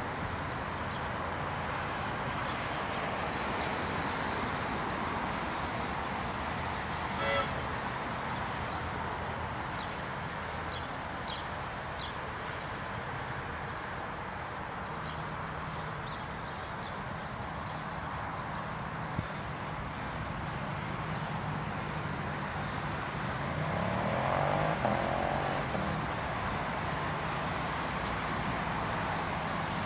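Comeng suburban electric train pulling away from the station and drawing closer at low speed, heard as a low steady hum under outdoor background noise, with a brief rising whine near the end. Birds chirp in short bursts through the second half.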